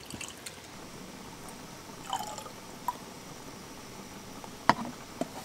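Citrus juice squeezed by hand and dripping into an open glass soju bottle, with a few light clicks and wooden knocks as wooden cups are handled, the sharpest near the end.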